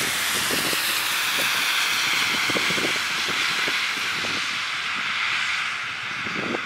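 Cars driving on a wet, slushy road: a steady tyre hiss that eases off near the end.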